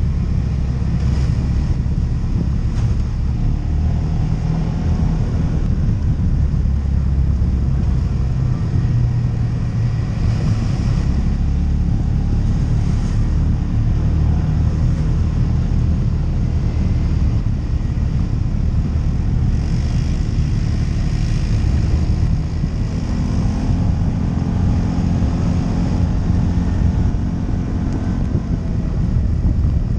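ATV engine running under way on a trail, a dense low rumble with its pitch shifting up and down as the throttle changes.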